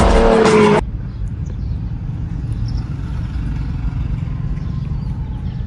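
Animated-film soundtrack with music and a voice cuts off abruptly under a second in, giving way to a steady low outdoor rumble with no clear events in it.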